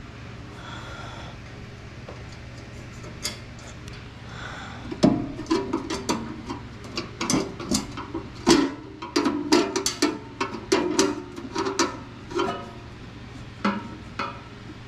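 Screws being driven into the sheet-metal hopper of a wood pellet smoker: a run of irregular metallic clicks and knocks from tool, screws and panel, starting about five seconds in and dying away near the end.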